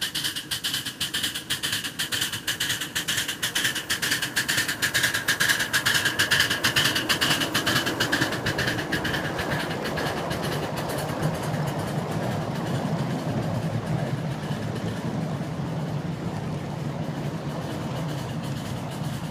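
Ride-on miniature railway train approaching and passing close by. A fast rhythmic beat from the locomotive grows louder about six seconds in, then gives way to the steady rumble of the passenger cars rolling along the track.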